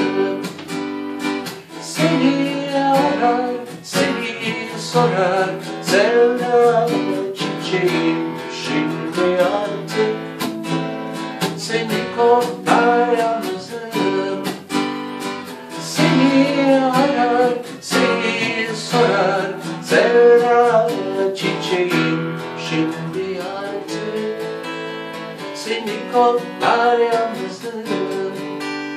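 Gibson acoustic guitar strummed, with a man singing over it.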